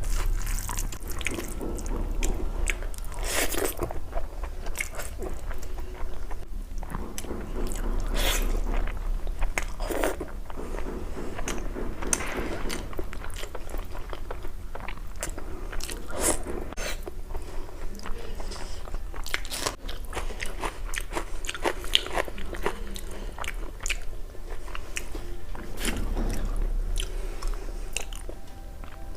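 Close-miked eating of crunchy food: repeated crisp bites and crackling chewing, irregular and continuing throughout.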